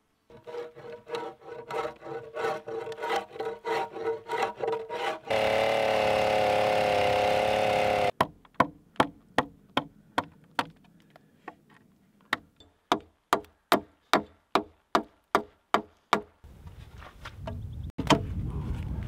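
A short piece of music: a pulsing pitched figure, then a held chord. Then a run of sharp wooden strikes, about two a second, from a mallet driving a chisel into a log. Wind noise on the microphone near the end.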